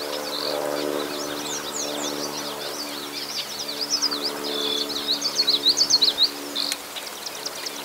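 Many quick, high bird chirps and whistles, densest and loudest about five to six seconds in, over a steady low hum.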